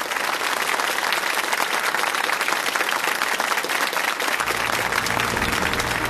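Studio audience applauding steadily, with music coming in underneath near the end.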